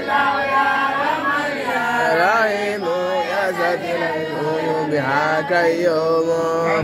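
A man chanting into a microphone in long held notes that bend and waver in pitch, one unbroken line of voice.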